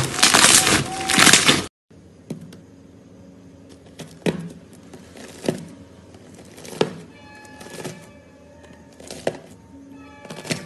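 Slime being squeezed and crushed with dense crackling for about the first second and a half. Then it cuts to a quieter stretch of slime being pressed and worked, with a sharp pop or click about every second and a quarter.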